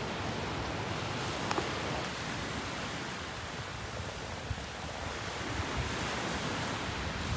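Steady beach ambience: an even hiss of gentle surf washing along the shore, with light wind.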